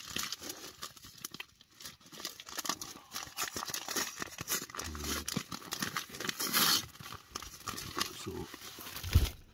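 Plastic doughnut packet crinkling and rustling as it is handled and opened, loudest about two-thirds of the way through, with a short low thump near the end.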